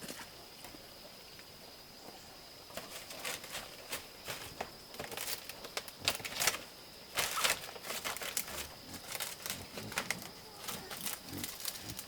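Irregular rustling and light clicks, beginning a few seconds in and growing busier, over a faint steady high-pitched tone.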